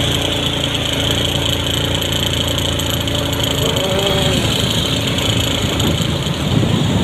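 Steady low rumble of a running motor-vehicle engine mixed with road noise, holding level throughout.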